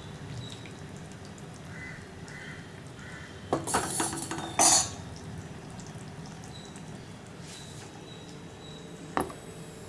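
A few clattering knocks of kitchen utensils against a stainless-steel stovetop, about three and a half to five seconds in, and one sharp click near the end, over a steady low background hiss.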